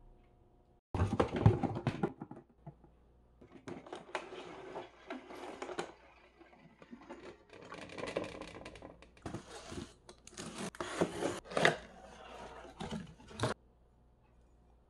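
Unpacking by hand: crinkling plastic wrapping, tearing and cardboard box flaps being handled, with light knocks of plastic parts. It comes in several bursts and stops a little before the end.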